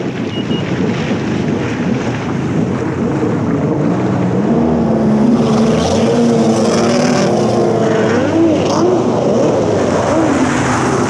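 Two-stroke stand-up jet ski engine at full throttle on a top-speed run, with the engine note climbing and then wavering as the ski skips over the water, under a heavy rush of wind and water.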